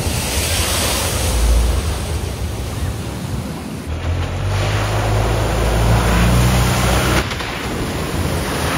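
Vehicles driving through a flooded ford, their wheels throwing up loud rushing sprays of water that splash down. In the middle a vehicle's engine is heard running with a low hum under the water noise. The sound changes abruptly twice as one pass gives way to the next.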